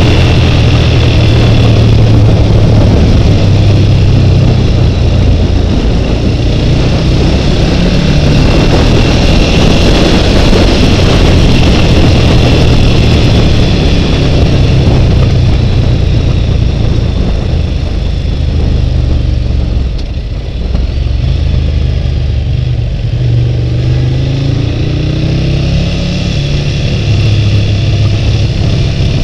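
Motorcycle engine running under way with wind rush, recorded on a helmet camera. The engine note steps up and down with throttle and gear changes, eases off about twenty seconds in, then picks up again with a rising rev.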